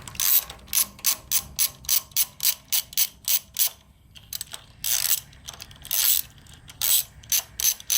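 Ratchet wrench with a 12 mm socket clicking in quick runs, about three or four clicks a second, as it backs out a bolt, with a short pause about halfway through.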